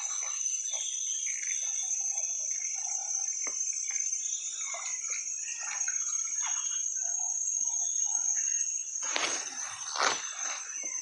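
Steady high-pitched drone of forest insects, with scattered short chirps over it. About nine seconds in, a brief loud rushing noise rises over the drone.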